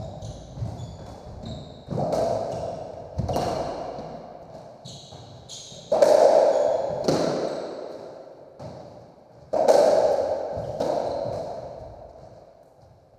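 Racketball rally on a squash court: the racket strikes the ball and the ball smacks off the walls and floor, each hit sharp and echoing in the enclosed court. The loudest hits come about six seconds in and again near ten seconds. Between the hits come short high squeaks of shoes on the wooden floor.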